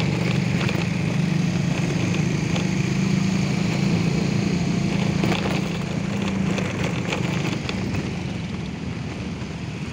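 Motorcycle engine running steadily under way, heard from the bike itself, easing off and getting quieter about seven seconds in.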